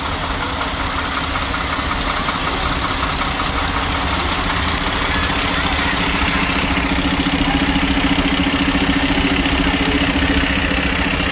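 Heavy truck engine running with a steady low rumble, growing somewhat louder in the second half as it draws nearer.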